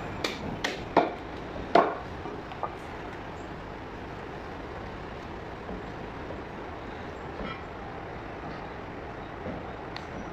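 Four sharp knocks on a wooden butcher's chopping block in the first two seconds as the mutton leg is worked, the last two the loudest, then only a steady background noise.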